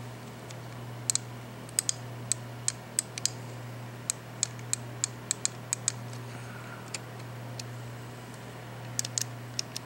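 Irregular light, sharp plastic clicks and ticks from the partly disassembled Logitech G500s gaming mouse's plastic parts being handled and pressed: about fifteen over the first seven seconds and a quick cluster near the end, over a steady low hum.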